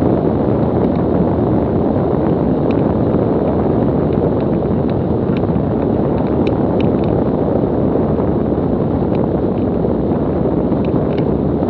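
Steady rush of airflow on the microphone, with rolling noise, as a Mooney M20C slows on its landing rollout down the runway. Faint, scattered ticks sound over it.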